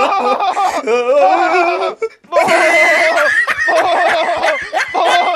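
Loud, theatrical voice laughter in wavering, drawn-out peals, with a short break about two seconds in.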